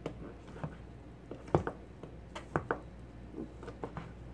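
Chef's knife chopping cooked chicken breast on a plastic cutting board: about a dozen irregular knocks of the blade through the meat onto the board, the loudest about a second and a half in.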